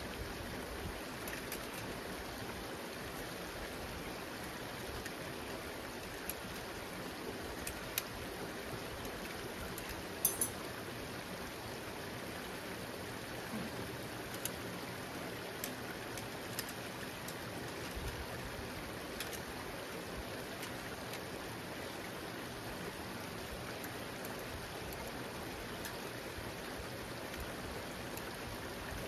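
Creek water running steadily through a culvert, with a sharp click about ten seconds in and a few fainter clicks.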